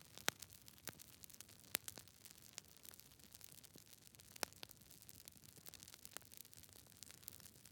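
Wood fire crackling: an irregular scatter of small snaps and pops over a faint hiss, with a few sharper, louder pops.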